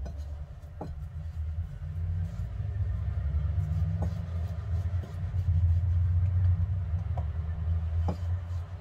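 A loud, steady low rumble that swells in the middle, over a few faint ticks as a kitchen knife presses and shapes the edges of a curd-cheese patty on a silicone mat.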